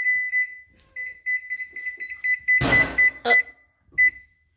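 Electronic timer beeping in quick, even, high-pitched pulses, signalling that the baking time is up. There is a short clatter about two and a half seconds in.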